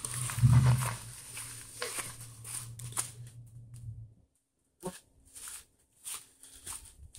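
Footsteps on gravel and leaf litter, about two a second, over the low, steady running of a Toyota Land Cruiser LC100's engine, which swells briefly about half a second in and drops out about four seconds in.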